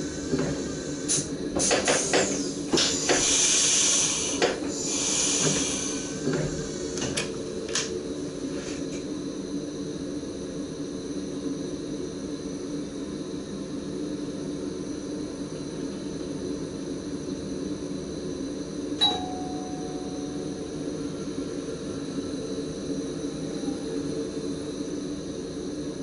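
Steady hum of an SGM Sprinter electric train's cab equipment, with several sharp clicks and a burst of air hiss in the first few seconds. About 19 seconds in comes a single click and a short ding.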